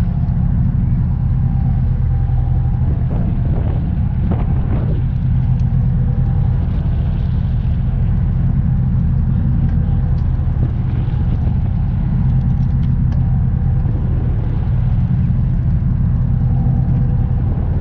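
Steady low rumble of a running engine, even and unbroken throughout.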